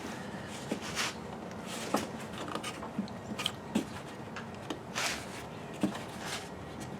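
Plastic air filter housing lid knocking and clicking in short separate taps as it is worked into place, its rear tabs being slid into their slots.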